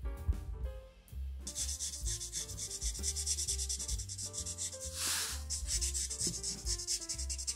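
Broad tip of a felt-tip marker rubbing quickly back and forth on paper while colouring in, a steady scratchy hiss of rapid strokes that starts about a second and a half in, with one stronger stroke about five seconds in. Faint background music underneath.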